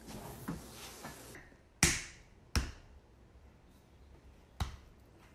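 Three sharp, short clicks spaced about a second or two apart, the first the loudest, with quiet between them.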